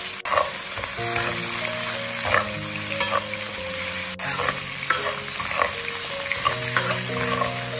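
Pork belly sizzling in hot oil in a stainless steel wok as it is stir-fried to render out its fat, with scattered clinks and scrapes of a metal ladle against the wok. Soft background music plays underneath.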